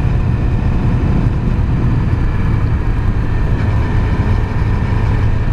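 Yamaha YZF-R6's inline-four engine running steadily at cruise while riding, its stock exhaust held with the exhaust valve closed. The exhaust sounds really quiet and droney, so mostly engine noise comes through over a heavy low rumble.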